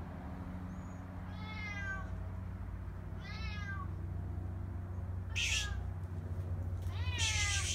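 Orange tabby cat meowing four times, each call high and falling in pitch, spaced about one and a half to two seconds apart. A short rushing noise comes with the last two meows.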